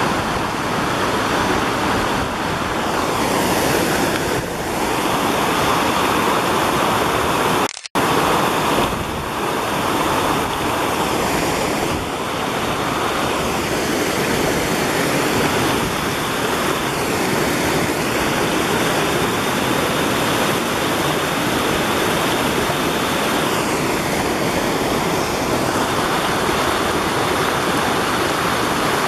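Small rocky brook rushing over ledges and little cascades: a steady, loud whitewater rush. The sound cuts out for a moment about eight seconds in.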